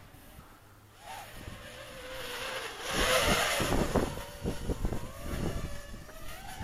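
Small quadcopter drone flying, its motors a faint wavering whine. From about a second in a rush of noise builds on the microphone, loudest three to four seconds in, with thumps, then eases off.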